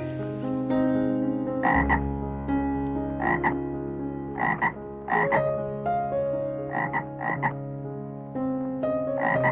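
A frog croaking: about seven short, rough croaks at uneven intervals, over background music with held notes.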